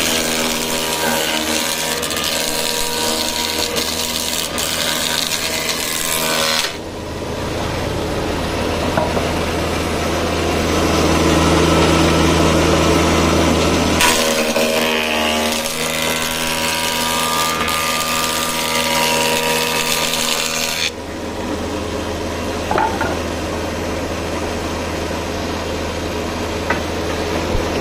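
Industrial thickness planer running with a steady motor hum while its cutterhead planes boards, throwing out wood shavings. The hissing cut sounds through the first several seconds, eases off, then comes back for several seconds in the middle.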